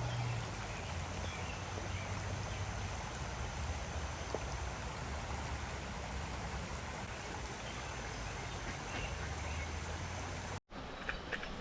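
Creek water running steadily over a shallow trout stream, a constant rush. It breaks off abruptly about ten and a half seconds in, leaving a fainter hiss.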